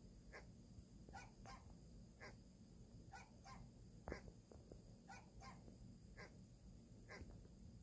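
Recorded dog barks played faintly through a phone speaker from a dog-translator app: a string of short, separate yaps, one to two a second, with a sharp knock about four seconds in.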